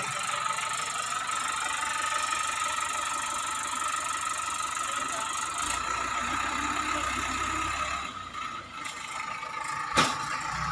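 JCB 3DX backhoe loader's diesel engine running steadily with a constant whine, dropping briefly about eight seconds in. A single sharp knock comes near the end.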